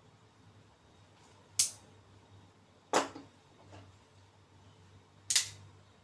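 Spring-loaded push-button folding knife blades snapping into place: three sharp metallic clicks, the first about a second and a half in, the last a little past five seconds.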